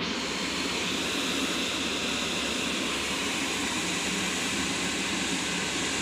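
Gas stove burner running under an empty pressure-cooker pan as it heats: a steady, even rushing hiss that starts abruptly and holds unchanged.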